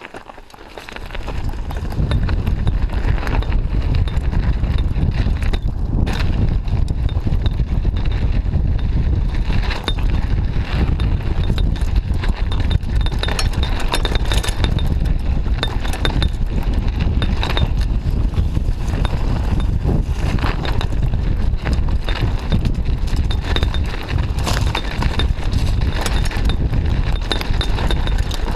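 Mountain bike riding fast downhill on a dirt forest trail: wind rumbling over the camera's microphone, with the bike rattling and clattering over roots and bumps. The noise builds up about a second in as the bike picks up speed.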